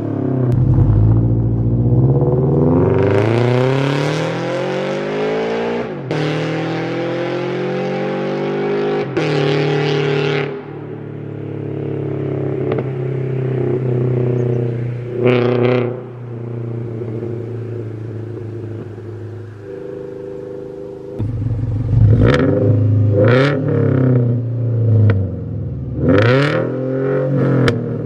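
Subaru FA20 flat-four engine of a Scion FR-S/Subaru BRZ breathing through a catless header and straight-pipe exhaust, revved in a long climb over about three seconds that falls back to idle. It idles steadily through the middle, then gives a sharp throttle blip and a run of quick rev blips near the end.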